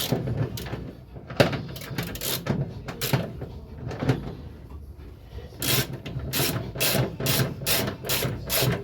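Ratchet wrench clicking as it tightens the mounting bolts of a gear selector, a few scattered clicks and then a steady run of about three clicks a second from about halfway.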